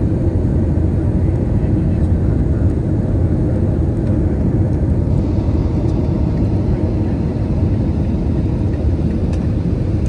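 Steady low cabin noise inside an Airbus A320-214 in flight: its CFM56-5B turbofan engines and the rush of air past the fuselage, heard from a window seat over the wing.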